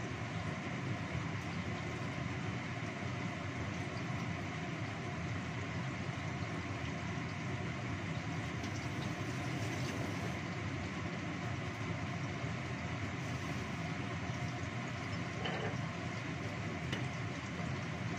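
Steady rushing noise of a two-burner gas stove running under a covered wok and a lidded pot while the food inside cooks.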